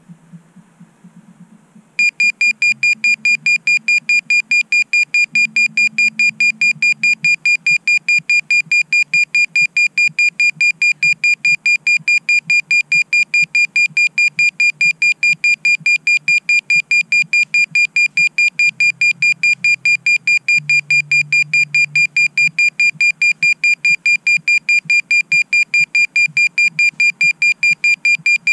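FPV drone's lost-model buzzer beeping: a shrill, high beep repeating several times a second, starting about two seconds in. It is the locator alarm a downed quad sounds so it can be found in the grass.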